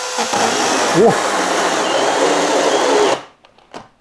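Makita MUC101D 18V cordless handy chainsaw cutting into a 2x4 board: a steady motor whine with the chain rasping through wood, the pitch sagging as the chain bites about a second in. The saw cuts off suddenly about three seconds in, stopping mid-cut, which the owner puts down to too much load.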